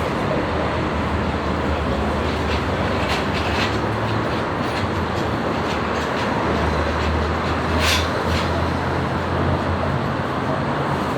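Segway Snarler ATV engine running steadily with a noisy rumble, its low drone growing stronger about six seconds in, with a few sharp clicks.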